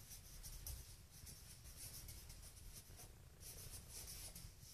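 Felt-tip marker writing a word in cursive on a sheet of paper: faint, quick, irregular scratching strokes.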